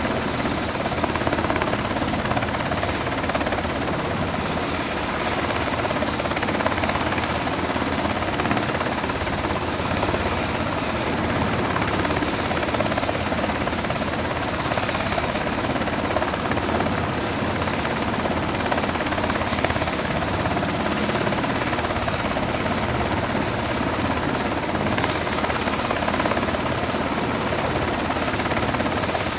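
MH-60 Jayhawk helicopter running on a ship's flight deck with its rotors turning: the steady rush of the twin turboshaft engines and rotor, with a constant high turbine whine over it.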